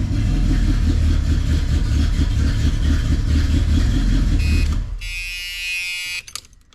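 1981 Oldsmobile Cutlass engine running with a steady low pulsing, now firing after a loose relay-area wire was unplugged and plugged back in; it is shut off about five seconds in. A short buzzing tone and a few clicks follow.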